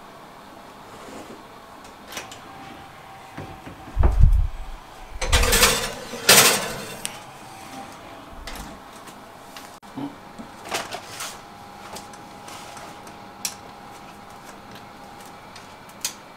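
Knocks and clunks of things being handled in a home kitchen: scattered light clicks, with the loudest being three heavy, deep thuds between about four and six and a half seconds in. A faint steady hum runs underneath.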